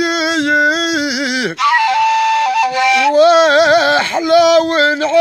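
Gasba, a long end-blown cane flute, playing an ornamented melody of long held, wavering notes with small pitch turns and steps.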